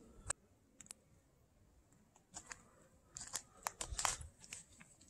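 Footsteps on a dirt hiking trail: faint, irregular crunches, few in the first half and coming about two a second in the second half.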